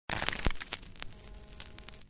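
Crackling intro sound effect: a dense burst of sharp clicks and crackles, loudest in the first half-second, thinning into scattered clicks over a faint low hum.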